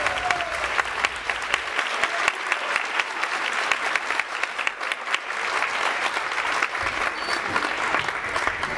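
Theatre audience applauding, a steady stream of many hands clapping at once, at the close of a ballet dance number.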